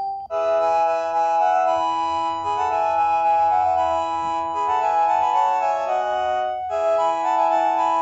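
Panasonic cordless phone handset previewing its 'Melody 6' ringer tone: an electronic tune played in chords. It starts about a third of a second in, as the previous melody cuts off, pauses briefly near the end and starts over.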